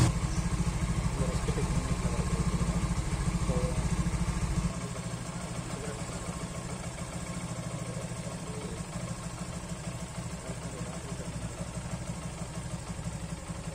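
A Yamaha FZ-S V3 motorcycle's 150cc single-cylinder engine idling in neutral with a steady, even beat; about five seconds in it drops to a quieter, lower level and runs on steadily.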